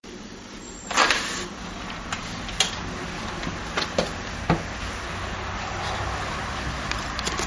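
Steady background noise with several sharp clicks and knocks, the loudest about a second in.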